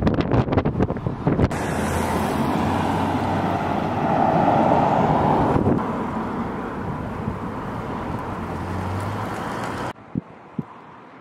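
Outdoor street sound with wind buffeting the microphone: crackling gusts at first, then a steady traffic rumble that swells around four to five seconds in. About ten seconds in it drops suddenly to quieter street background, with two short clicks.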